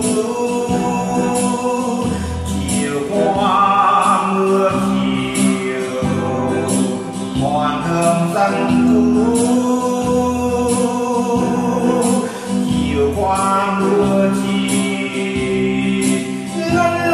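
A man singing a Vietnamese song to electronic organ accompaniment with a steady beat.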